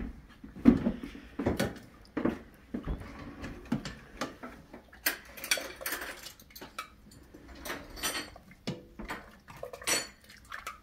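Ladle knocking and scraping in a metal stockpot, with irregular clinks, as milky stew is ladled and poured into a ceramic bowl.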